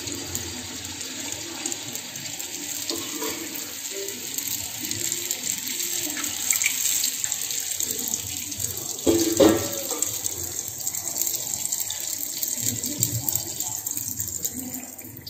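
A stick of yu char kueh (cakwe) dough deep-frying in hot oil in a steel wok: a steady sizzle and bubbling.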